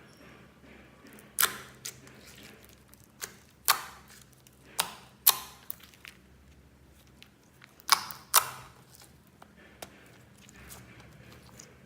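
Slime being pressed and squeezed, trapped air making sharp, wet pops, mostly in pairs about half a second apart, about four pairs in all.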